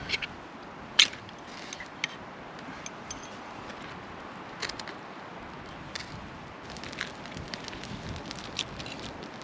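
Wood campfire crackling: irregular sharp pops, the loudest about a second in, over a steady hiss.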